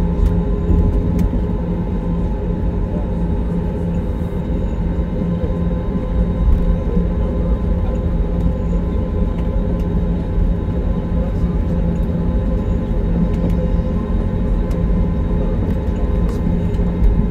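Airliner cabin noise during taxi: the jet engines run at low taxi power, a steady hum with several held tones over a deep rumble.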